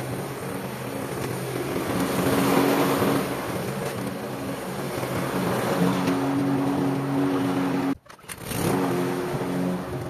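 Rotary lawnmower running steadily as it is pushed over grass. Near the end it drops out briefly and then picks up again.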